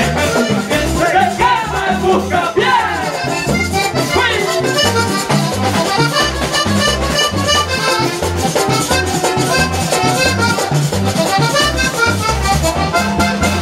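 Live vallenato band music: a button accordion plays a run of quick short notes over a steady bass and percussion.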